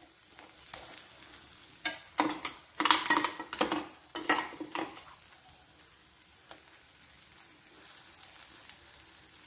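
Dosa frying in oil on a hot pan with a faint steady sizzle, while a spoon spreads green herb paste over it: a run of short scraping strokes from about two to five seconds in, then a few lighter taps.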